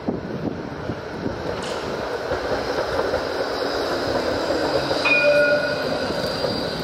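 A low-floor articulated city tram running along a street among car traffic: a continuous rumble of wheels and motors with a steady high whine, and a brief tone about five seconds in.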